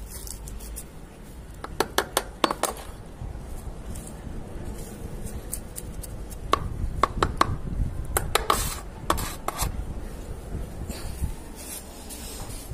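Knife blade digging and scraping through dry potting soil in a terracotta pot: a gritty scraping with clusters of sharp clicks about two seconds in, and again around seven to nine and a half seconds in.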